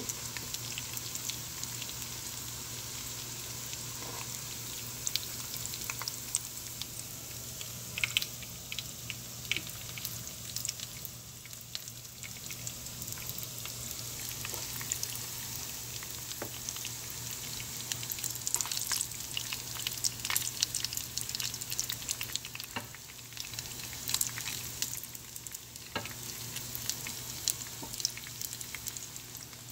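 Breaded chicken of the woods mushroom pieces deep-frying in hot oil in a pan: a steady sizzle with many scattered crackles and pops.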